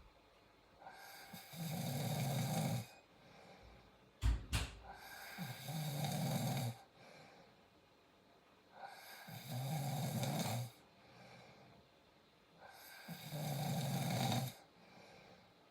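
A sleeping cat snoring: four slow snores, one about every four seconds, with quiet breathing between them. A brief sharp click comes about four seconds in.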